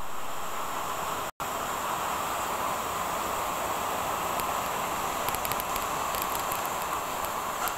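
Heavy tropical rain pouring steadily, heard from behind a cafe window, with sharp ticks of drops striking the glass in the second half. The sound cuts out for a split second a little over a second in.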